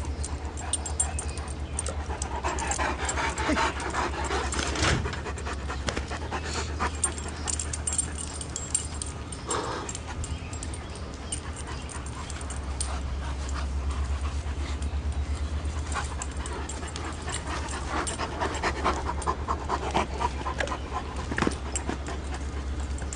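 Two Great Danes panting and making dog noises as they play together, in irregular bursts that are busiest near the start and again near the end, over a steady low hum.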